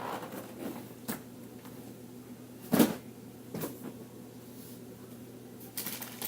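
A single sharp knock about three seconds in, with a few fainter clicks and knocks around it over a low steady hum.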